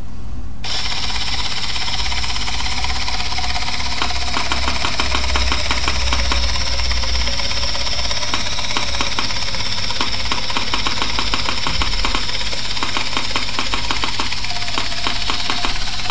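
3Shape TRIOS intraoral scanner in use: a steady whir sets in about half a second in, with rapid, uneven clicking. The clicking is the scanning software's capture sound, the sign that each image is being captured successfully.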